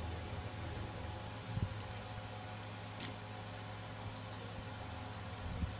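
A few faint, scattered clicks from hand work on a blender armature and its winding wire, over a steady low hum.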